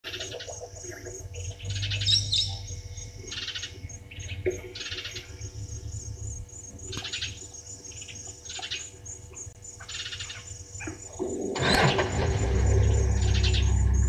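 Brown-headed parrots calling, a short call every second or two, over a faint, steady, high pulsing. Near the end a steady low rumble comes in and grows louder.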